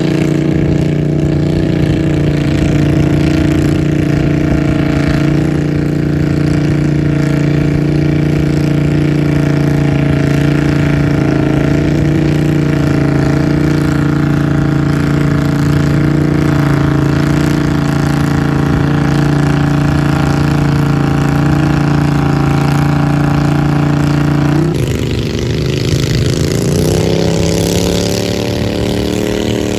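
Garden tractor engine running at a steady high pitch, its note dropping suddenly about 25 seconds in, then slowly climbing again near the end.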